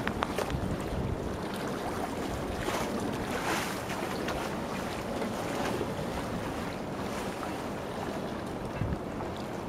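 Wind rumbling on the microphone over a steady hiss of outdoor city noise, swelling softly a couple of times.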